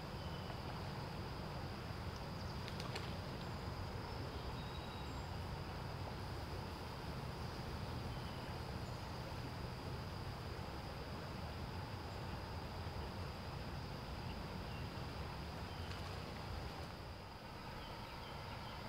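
Streamside ambience: a continuous high-pitched insect drone over the low, steady rush of moving water, with a few faint short chirps.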